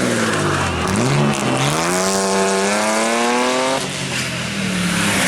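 Rally car engine on a timed stage: the revs fall for about the first second as it slows, then the engine pulls hard with a steadily rising note for nearly three seconds before it lifts off suddenly to a lower, steady note.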